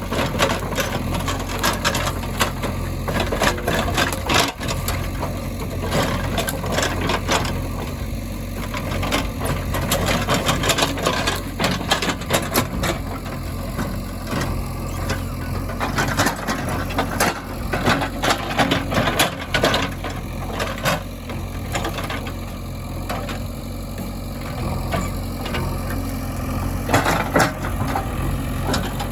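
Diesel engines of a JCB 3DX backhoe loader and farm tractors running steadily, with frequent sharp clanks and rattles of the machinery throughout.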